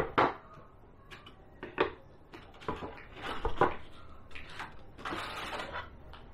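White particleboard flat-pack panels being lifted out of the box and set down, knocking against one another in a series of sharp clacks, with a brief scrape near the end.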